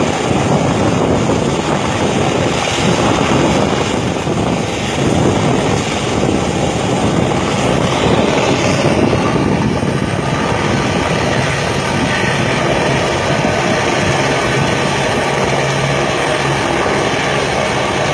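Helicopter rotor and engine running steadily close by, the rotor beating fast and continuously.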